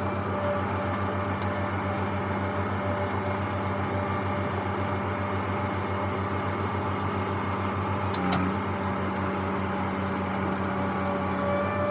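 Diesel farm-vehicle engine running steadily at a constant speed, an even hum with a fast low pulse, and a brief click about eight seconds in.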